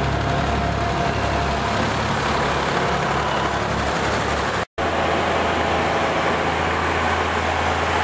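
Vintage farm tractor engines running as they drive slowly past. An abrupt cut comes a little over halfway through, then an ERF lorry's diesel engine runs at a steady low hum as it creeps forward.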